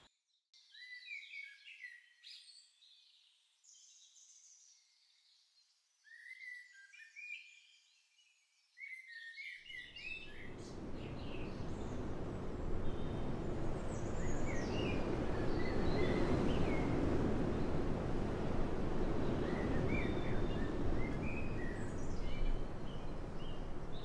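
Small birds singing and chirping in short scattered phrases. After about ten seconds a steady wind noise comes in and builds, with the birdsong going on over it.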